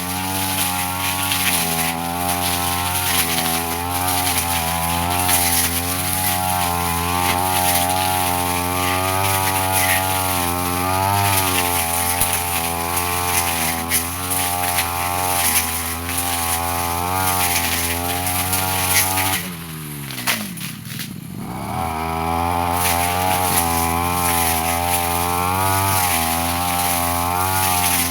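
Brush cutter engine running under load while cutting through undergrowth, its pitch wavering as the blade bites. About twenty seconds in the throttle is let off and the engine falls toward idle, then revs back up about two seconds later.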